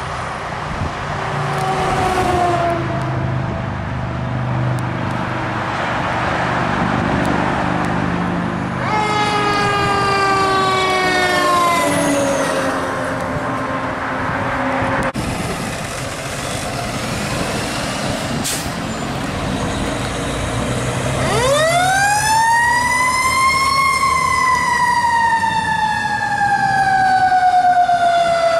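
Fire engine responding with its siren sounding over the truck's engine. The siren winds down slowly near the middle, then winds up sharply to a high wail and slowly falls away.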